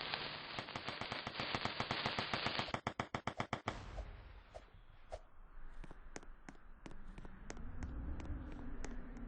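Fireworks going off: a dense, rapid run of cracking bangs that cuts off suddenly just under four seconds in, followed by scattered single cracks, about two a second.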